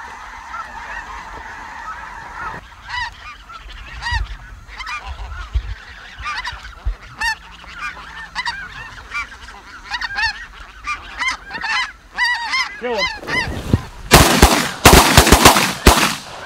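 Snow geese calling: a dense clamour of many birds at first, then a string of separate honks. About fourteen seconds in, a rapid volley of shotgun blasts from several guns breaks out over the calling.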